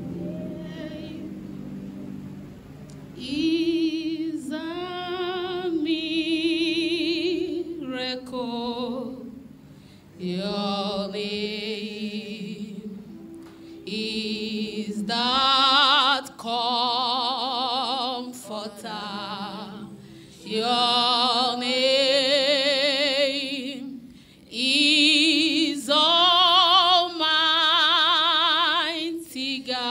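A woman singing a slow worship song solo into a microphone, in long phrases with a strong vibrato and short breaks for breath, over soft sustained notes underneath.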